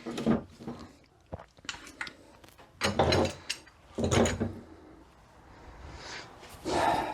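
Metal transmission parts being handled on a workbench: a series of knocks and scrapes, the loudest about three and four seconds in, with another near the end.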